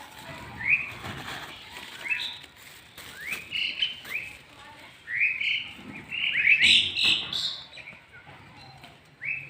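Birds chirping: a run of short, rising calls repeated over and over, with several overlapping and loudest a little past the middle.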